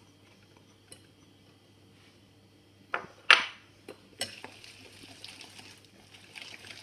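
Metal wire whisk in a glass bowl of thick besan batter and sliced onion: two sharp clinks against the glass about three seconds in, then steady stirring with quick light clicks and scraping.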